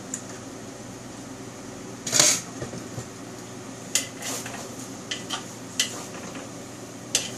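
A metal wok ladle and a wooden spatula stirring and tossing noodles in a wok, with scattered clanks and scrapes against the pan over a steady low hum. The loudest clank comes about two seconds in, and a run of lighter knocks follows between four and six seconds in.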